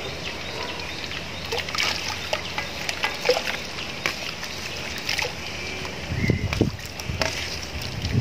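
Cut potato sticks frying in hot palm oil: a steady sizzle with scattered crackles. This is the first, light fry that par-cooks the fries before the second frying. A few low thuds come about six seconds in.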